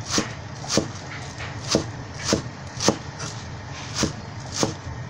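Knife chopping spring onions on a wooden cutting board: evenly paced knocks of the blade against the board, about two a second, over a low steady hum.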